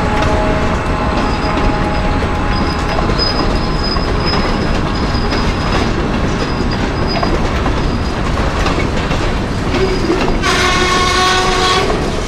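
Freight train of covered hoppers and tank cars rolling past close by: a steady rumble and clatter of wheels on rail, with a faint high squeal coming and going. Near the end a pitched tone with several overtones sounds for about a second and a half.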